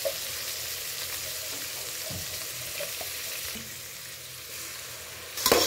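Oil sizzling steadily in an aluminium pot as soya chunks, onion and green chillies fry, with a brief loud clatter near the end.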